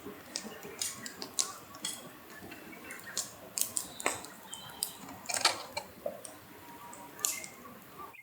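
Scattered small clicks, knocks and clinks of things being handled at irregular intervals, like cookware and utensils.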